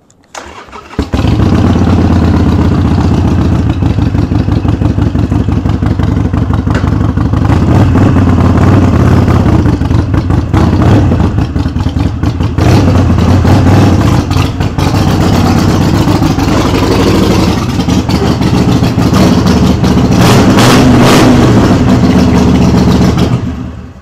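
Harley-Davidson Sportster's V-twin engine cranking over and catching about a second in, then running with a lopey, uneven idle that comes from a non-stock engine build. The engine is shut off near the end.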